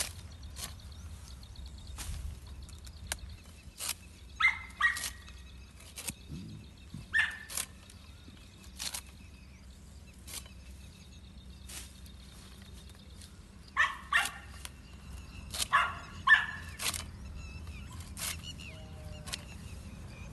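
A dog barking in short pairs of sharp barks, a few times over, the loudest sound here. Between them, sharp snaps of a hand sickle cutting through green fodder stalks.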